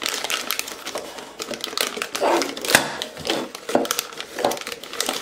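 Disposable plastic piping bag crinkling and rustling as it is pulled open and handled, with quick irregular crackles.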